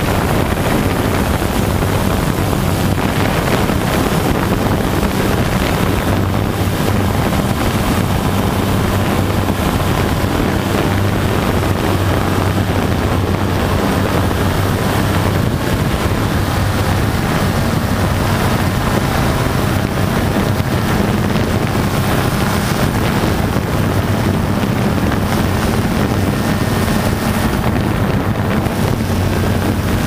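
Vibratory pile-driving rig running with a steady low hum, wind buffeting the microphone.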